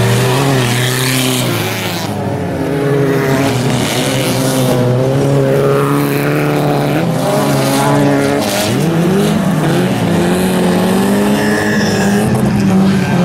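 Autocross race cars, a Peugeot 205 among them, racing on a dirt track: several engines at once, each revving up and down as the cars accelerate and lift off, with a pronounced rise and fall in pitch about two-thirds of the way through.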